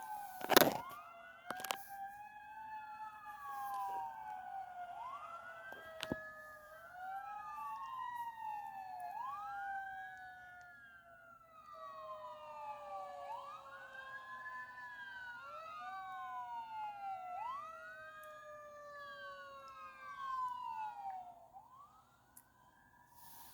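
Two or more emergency vehicle sirens wailing together out of step, each tone climbing quickly and falling away slowly, fading out near the end. A sharp knock about half a second in is the loudest sound.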